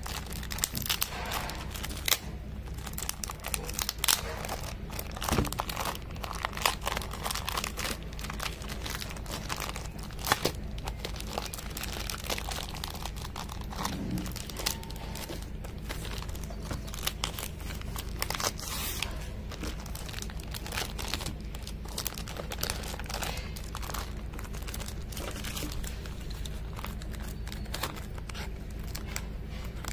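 Clear plastic wrapping on a pack of thick watercolour paper being pulled and peeled back by hand, crinkling in quick irregular rustles as the stiff sheets are shifted. A steady low hum runs underneath.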